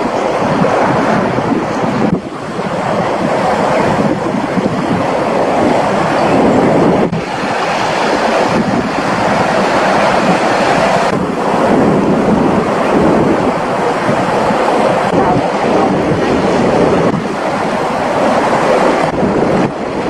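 Sea waves washing and breaking against granite shore boulders, a continuous rush of surf with wind buffeting the microphone. The sound changes abruptly several times, every two to four seconds.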